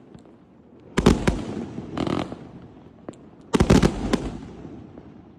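A 100-shot, 500-gram consumer firework cake firing: a quick volley of sharp bangs about a second in, a softer burst around two seconds, and another volley at about three and a half seconds, each fading away.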